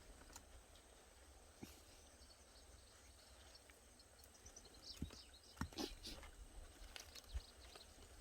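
Faint wet clicks and smacks of a dog chewing food, most of them bunched together in the second half.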